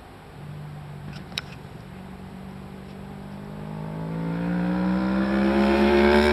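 Sport motorcycle engine accelerating hard toward the listener on a race track, one long note climbing steadily in pitch and growing louder as it approaches. A brief sharp click about a second and a half in.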